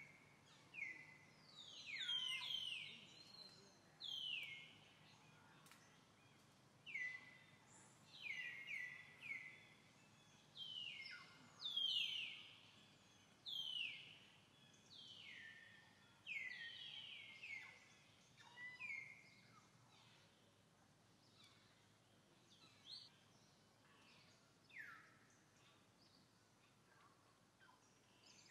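Birds calling over and over in short whistles that slide quickly downward in pitch, about one a second and sometimes overlapping, thinning out after about twenty seconds, over a faint steady background hush.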